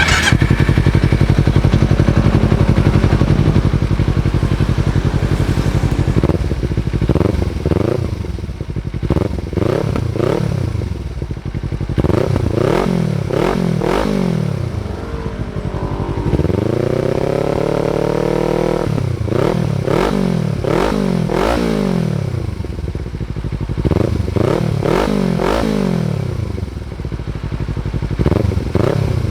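Kawasaki Z300's parallel-twin engine revving through its stock muffler rebuilt with bypass internals and fibreglass packing. It runs steadily for the first few seconds, then gives repeated quick throttle blips, one longer rev that climbs and holds high around the middle, then more blips.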